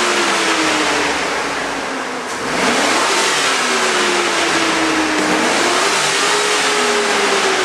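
LM7 5.3-litre V8 of a 2004 GMC Yukon revved while the truck stands still, heard from inside the cab. The revs fall back about two seconds in, rise again and hold, then climb once more before easing down near the end.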